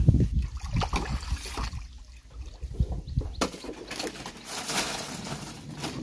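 Bamboo raft being poled through water: sloshing and splashing around the pole and raft, with scattered irregular knocks. A heavy low rumble fills the first half, and the splashing hiss is strongest a little before the end.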